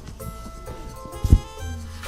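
Background instrumental music: held notes over a low bass line, with a drum hit about a second and a quarter in.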